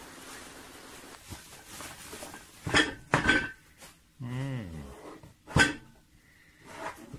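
Bubble wrap rustling as a cardboard box is slid out of it, then a few sharp knocks and taps as the box is handled and set down on a table.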